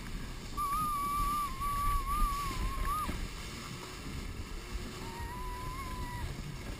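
Snowmobile engine whining as it tows a canoe over packed snow, its pitch wavering, fading out about three seconds in and returning a little lower near the end. Under it, a steady rumble from the hull sliding on the snow, with wind on the microphone.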